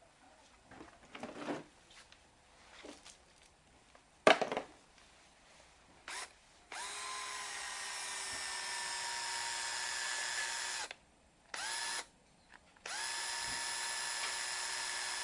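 Makita cordless threaded-rod cutter's electric motor running with a steady geared whine. It gives a brief blip, then runs about four seconds, stops, gives another short burst, and runs steadily again. A few clicks and knocks of handling the tool come before it.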